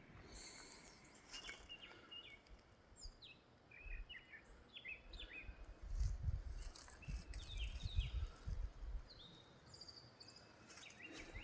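Small birds chirping and calling repeatedly, faint, with a low rumble between about six and nine seconds in.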